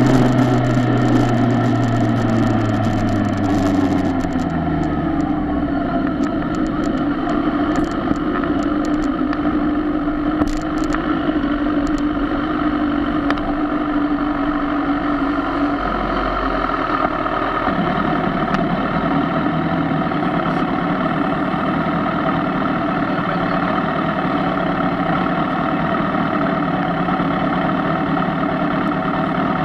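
Kawasaki ZX-10R's inline-four engine heard from on the bike: its note drops over the first few seconds as the bike slows, along with wind noise that fades, then it idles steadily as the bike rolls to a stop. A few light clicks in the middle.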